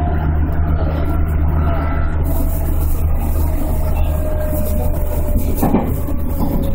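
A JR Central 211 series electric train, motor car, running at speed and heard from inside the front cab: a steady low rumble of wheels on rail with a faint whine, and a single brief knock near the end.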